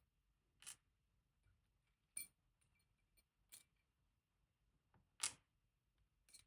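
Five faint, short metallic clicks spaced a second or more apart, the loudest about five seconds in: small parts of an Abloy Classic disc-detainer core, its discs and spacers, being handled and set down as the core is taken apart.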